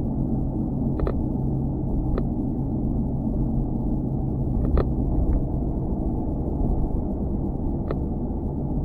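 Loose GoPro mount rattling and buzzing against its fitting: a steady low rumble and hum with a few sharp knocks scattered through.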